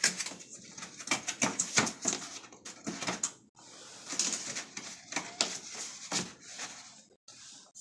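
Irregular clicks, knocks and rustling of an HVAC air filter being handled and fitted back into a return-air vent.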